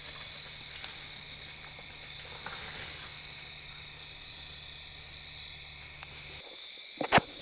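Night insect chorus: a steady high-pitched trill over a low hum. The hum stops abruptly near the end, and a couple of sharp knocks follow just after.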